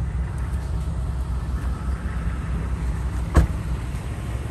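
A pickup truck's door is shut with a single sharp thump about three and a half seconds in, over a steady low rumble.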